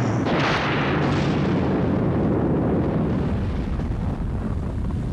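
Blizzard wind sound effect: a loud, rumbling rush of storm wind, swelling brighter near the start and then easing slightly.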